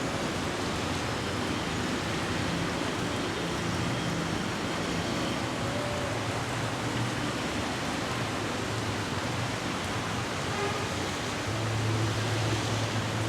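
Heavy rain pouring down in a steady hiss, with a low hum that grows louder near the end.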